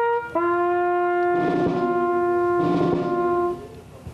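Brass instruments playing slow funeral music in held notes: a brief note, then a lower note held for about three seconds.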